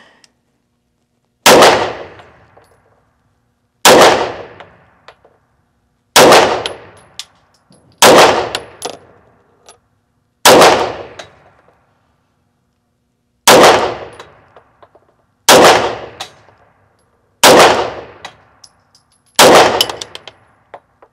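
Grand Power X-Calibur 9mm pistol fired in slow, aimed single shots: nine loud reports about two to three seconds apart, each followed by a short ringing decay.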